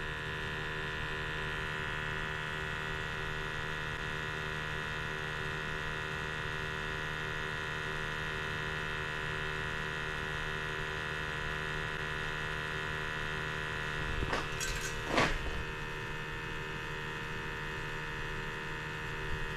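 Steady electric buzzing hum of a small motor, even in level, with a couple of brief noisy rustles or clicks about 14 to 15 seconds in.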